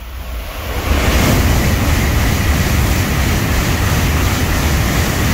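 Shinkansen bullet train rushing past at speed: a loud, steady roar of air and rail noise that builds within about a second.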